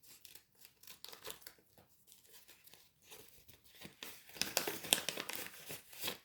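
Wrapper of a trading-card pack being torn open and crinkled by hand, a run of small crackles that grows louder about four seconds in.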